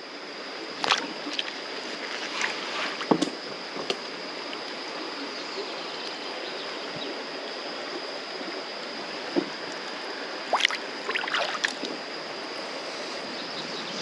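River water running steadily over shallow riffles around a wading angler, with a few brief splashes about a second in, about three seconds in, and again later.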